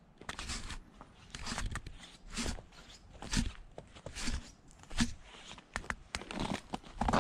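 Footsteps crunching on a thin layer of snow over dry leaves and twigs, about one step a second.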